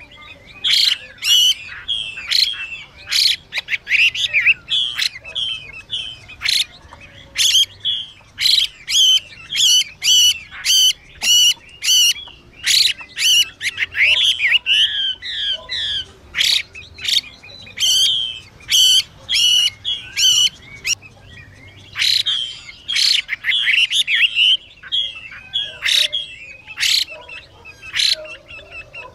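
Chinese hwamei calling in a fast, unbroken run of short sharp notes mixed with whistled warbles. This is the female hwamei's 'xùy' call, here with male song, which keepers play to rouse male hwameis.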